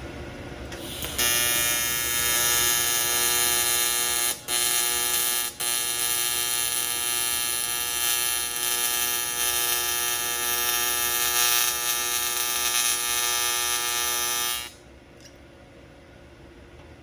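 AC TIG welding arc on aluminum, a steady buzz that strikes about a second in, breaks off briefly twice, and stops a couple of seconds before the end.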